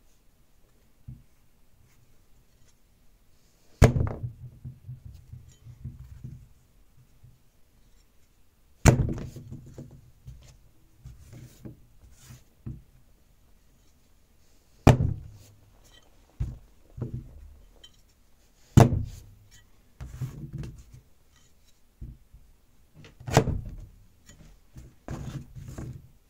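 A heavy meat cleaver, a restored antique hog splitter, chopping a purple-top turnip on a metal tray. There are five loud, sharp chops a few seconds apart, each followed by a few softer knocks.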